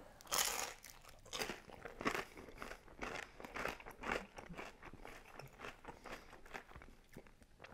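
Crispy thin-crust pizza crust bitten with a sharp crunch just after the start, then chewed with repeated crunches, two or three a second, close to a clip-on microphone.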